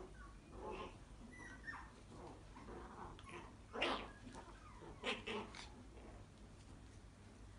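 A puppy and an adult small dog play-fighting, giving short yips and whimpers, with three louder sharp yelps about four and five seconds in.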